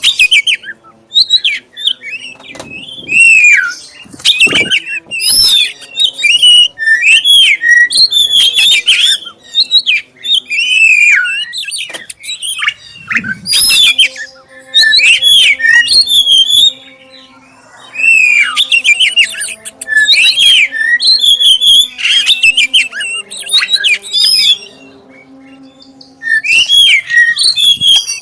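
Black-chested oriental magpie-robin (kacer dada hitam) singing a loud, clear song of rapid, varied whistled phrases with short pauses between them. This is a lure song of the kind played to provoke other kacer into singing.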